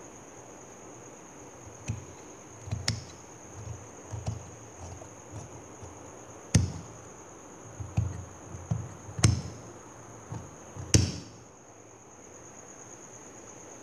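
Scissors snipping through stone-studded embroidered fabric: a run of irregular sharp snips and crunches as the blades close on cloth and stones, the stones making the cutting hard going.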